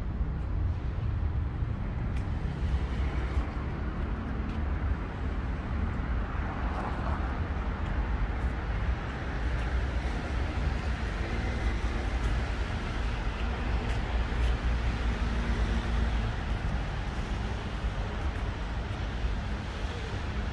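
City street traffic: a steady low rumble of cars going by, with one passing vehicle growing louder and fading away in the middle.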